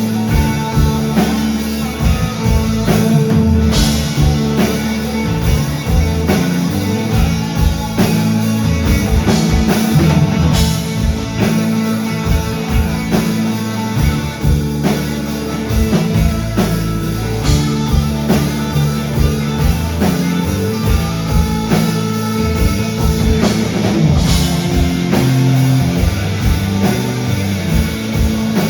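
Live rock band playing with electric guitars, bass and a drum kit: sustained chords over a steady drum beat, with cymbal hits now and then.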